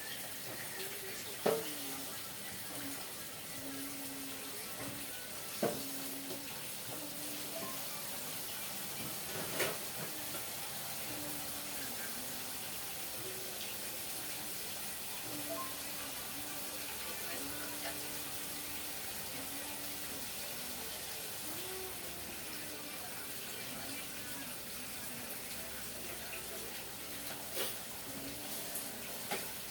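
Steady rush of running water in a kitchen, with a few sharp knocks of utensils and a faint voice in the background.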